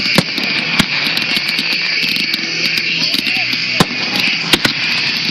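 Fireworks: about five sharp bangs of shells bursting, two of them in quick succession near the end, over a continuous hiss and crackle of sparking fountains.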